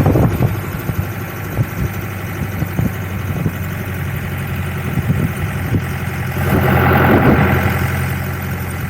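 Safari jeep's engine running with a steady low hum, briefly louder about two-thirds of the way through.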